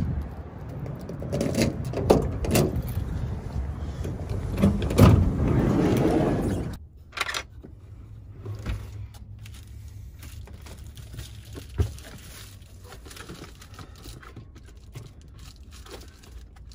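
Keys jangling and the clicks of a Ford Econoline's side-door latches being worked and the door opened, over a low steady rumble. About seven seconds in it turns to quieter rustling and small knocks as groceries are put away inside the van.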